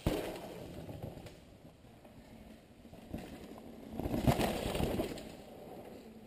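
Downhill mountain bikes passing close on a dirt trail. A sharp knock and a rush of tyres on dirt open as one rider goes by and fade. A second rider's tyres and rattling bike build to a louder peak with knocks about four seconds in, then fade away.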